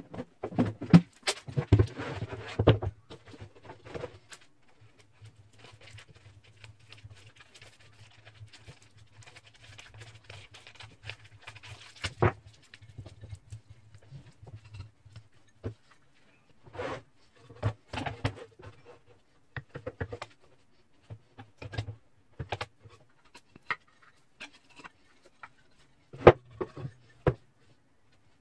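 Irregular clicks and knocks of small hard objects being handled, loudest near the start and again near the end, with a faint low hum through the middle.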